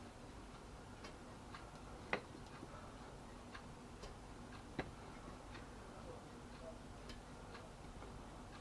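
Faint, slightly irregular ticking, about two ticks a second, with two louder clicks, over a low steady hum: an air fryer's clockwork timer running down while the appliance cooks.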